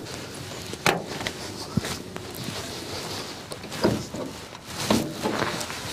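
A few sharp clicks and knocks from the bonnet catch and bonnet of a 1952 Humber Super Snipe Mark III being worked open by hand, about one second in and again near four and five seconds in, with footsteps on gravel.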